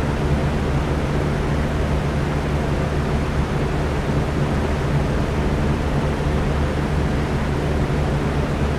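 Electric fan running steadily: an even rush of air over a steady low motor hum.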